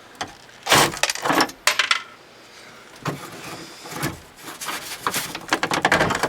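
Metal hand tools and fittings clinking and rattling while a fastener is being worked loose. There is a burst of clatter about a second in, and a longer run of quick clicks from about three seconds in.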